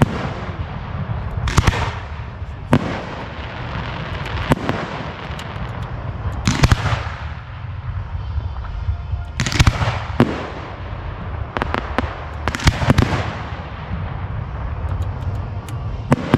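Display fireworks going off: sharp booms at uneven intervals of one to three seconds, a few coming in quick pairs, over a steady low rumble.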